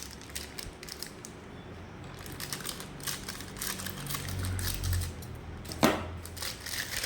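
Hard-drive packaging being handled and opened by hand: scattered light clicks and rustles, with one sharper click about six seconds in.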